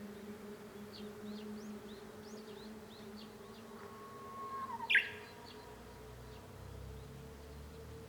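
Japanese bush warbler singing its "hoo-hokekyo" song once: a long held whistle that dips at its end, then a loud quick flourish about five seconds in. Scattered short high chirps come before it, over a steady low hum.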